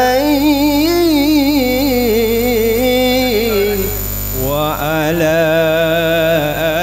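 A man sings an Arabic devotional chant (sholawat) through a microphone and PA, in long wavering, ornamented held notes. The singing breaks off about four seconds in and a new phrase begins. A steady electrical hum from the sound system runs underneath.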